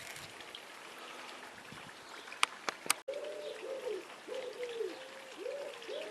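Two sharp clicks about two and a half seconds in, then a pigeon cooing over and over in the background.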